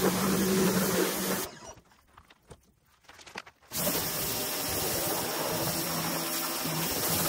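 Pressure washer spraying: a steady hiss of water over a low pump hum. It stops for about two seconds, starting about a second and a half in, then starts again.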